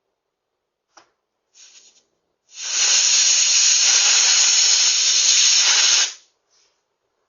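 Air hissing out of a car tire punctured with a blade: a loud, steady hiss lasting about three and a half seconds that cuts off quickly. A faint click and a brief rustle come just before it.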